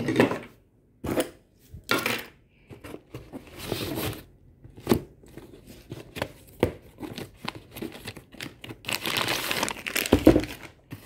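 Cardboard packaging and plastic wrap being handled: a string of short rustles and knocks as cardboard boxes are moved and a small carton's flaps are opened, with a longer crinkling rustle near the end.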